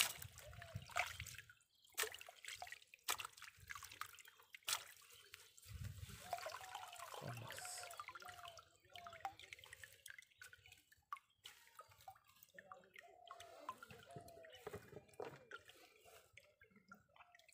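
Wet mud, twigs and small fish being sifted by hand in a fine-mesh net: dripping water and squelching, with scattered sharp clicks and knocks as debris is moved.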